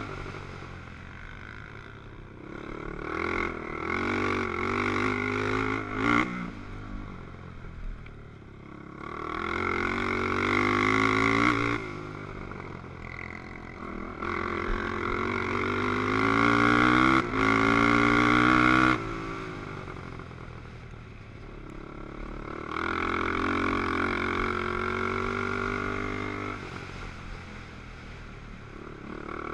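Racing quad ATV engine running hard over rough dirt, its pitch climbing steeply and dropping back again and again as the rider works the throttle and gears. It is loudest in a long high run near the middle.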